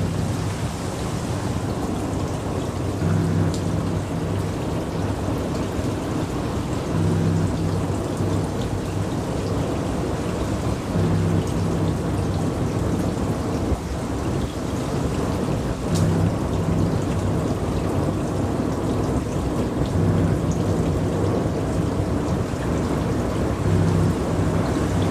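Ambient electronic noise music: a dense hiss like heavy rain and distant thunder, with a low, deep tone that swells in and out about every four seconds.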